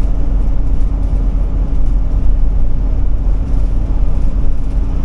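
Steady engine and road noise inside the cab of a Ford E-450 motorhome cruising on a highway: a constant low rumble with an even hum over it.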